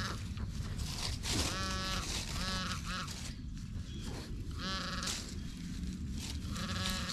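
Nokta Legend metal detector giving five short, buzzy target tones as the coil passes over metal. The longest tone lasts under a second.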